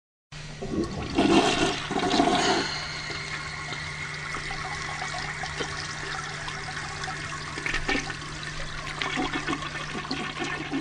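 Toilet flushing, loudest for the first couple of seconds, then water running on steadily, with a low steady hum underneath.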